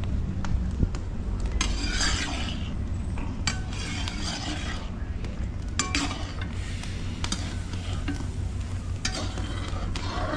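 A spoon stirring and scraping around a pot of milk boiling over a wood fire, with scattered clinks against the pot, over a steady low rumble.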